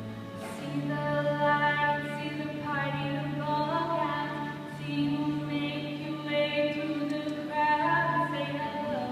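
A girl singing a solo song, holding long notes that rise and fall, over accompaniment with steady sustained low notes.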